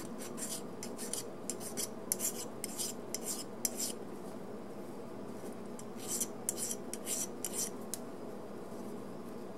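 Hand file rasping back and forth across the edge of a model locomotive kit's bottom plate, cleaning off casting flash. Quick strokes, about three a second, in a run of about four seconds, then a pause of about two seconds and a shorter second run.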